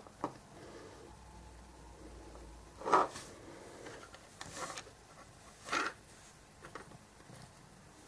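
A few brief, soft handling sounds, small clicks and rustles, from paint pots and a paintbrush being handled on a tabletop, over quiet room tone. The loudest comes about three seconds in.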